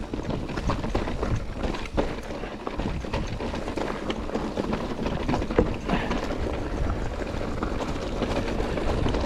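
Mountain bike rolling over a rocky trail: tyres crunching on stones, with many small irregular rattles and knocks from the bike.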